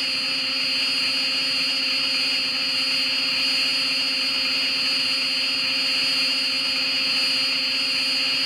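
Edited King Caesar monster sound effect: one long, unchanging drone, a shrill high tone over a low hum, held without a break.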